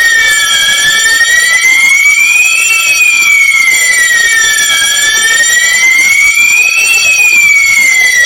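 Electronic fire alarm sounder going off loud during a test of a newly wired conventional fire alarm system: a wailing tone that slides slowly up and down, about four seconds per rise and fall, over steady high-pitched tones.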